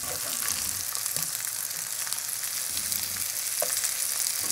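Butter sizzling in a hot skillet as skewers of rice cake and mozzarella cheese fry, a steady crackling hiss. A few light knocks come as the skewers are turned over in the pan.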